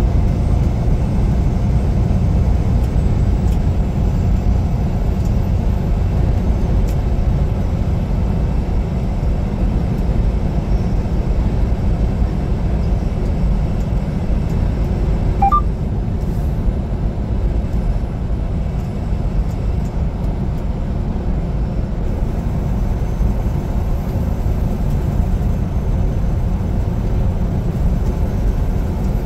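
Semi-truck driving at steady speed: an even, unbroken low rumble of engine and road noise.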